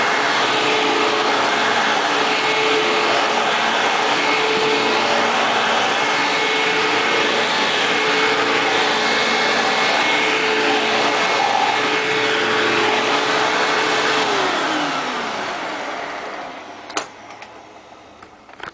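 Belt-driven Hoover WindTunnel Ultra vacuum cleaner running steadily with a loud motor whine. About 14 seconds in it is switched off and the motor winds down, its pitch falling as the sound fades. A single sharp click comes near the end.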